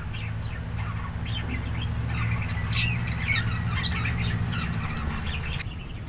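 Budgerigars chattering, a dense run of short squawks and chirps, busiest mid-way. A steady low hum runs underneath and stops shortly before the end.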